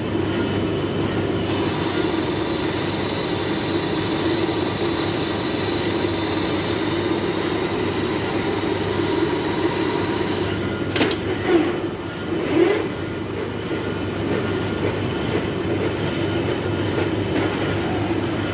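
Large metal lathe running steadily. A high squeal from the cutting tool on the iron workpiece starts about a second and a half in and stops after about nine seconds, followed by a few sharp knocks.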